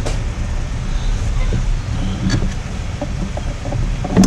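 A steady low mechanical rumble, like a running motor or engine, with a few sharp clicks about two seconds in and near the end.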